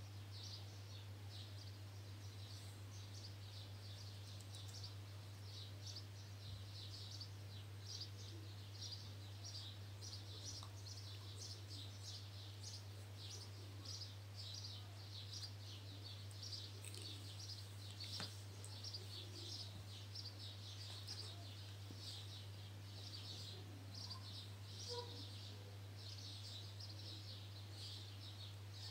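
Small birds chirping in quick, irregular high calls, over a steady low hum.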